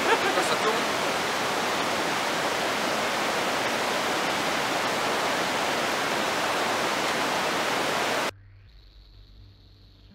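Steady rushing hiss of running water, like a stream or small waterfall. It cuts off suddenly about eight seconds in, leaving only a faint high tone and a low hum.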